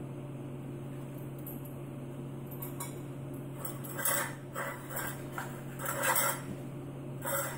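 Metal muffin tin clanking and scraping on a tile floor as a husky noses at the balls in its cups. A handful of short clatters start about four seconds in, over a low steady hum.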